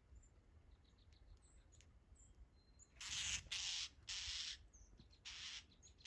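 Northern mockingbirds giving harsh, raspy calls: four hissing bursts of about half a second each, starting about halfway in. Faint high chips from small birds come before them.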